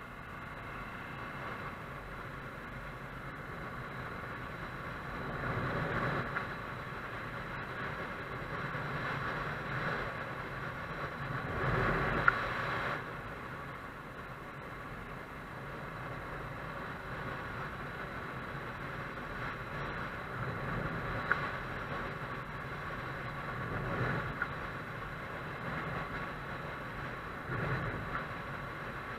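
Motorcycle engine running under way, with wind and road noise, swelling a few times as the throttle or speed changes.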